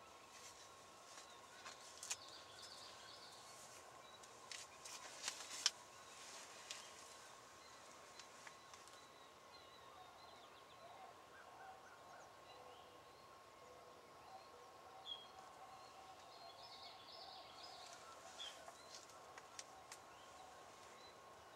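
Near silence with faint, scattered calls of a group of wild turkey jakes feeding in a field. A few sharp clicks, the loudest about two and five and a half seconds in, stand out over a faint steady tone.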